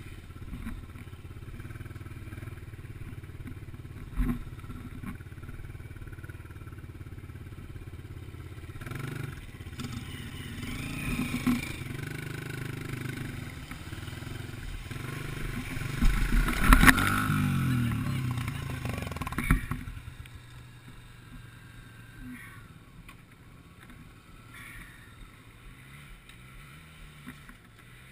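Honda XR dirt bike engine running on a muddy trail, revving hard with clattering knocks about two-thirds of the way through. The engine then cuts out suddenly as the bike goes down in the mud and stalls.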